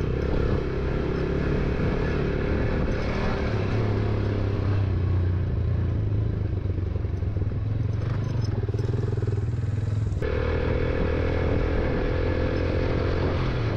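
Motorcycle engine running steadily while riding over a dirt track. The engine note changes abruptly about ten seconds in.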